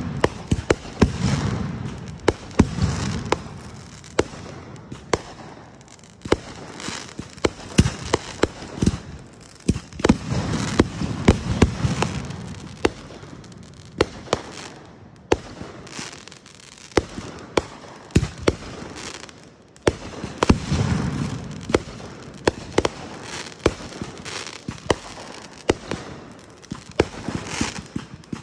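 Fireworks going off: a dense run of sharp cracks and pops, with several deeper booms along the way.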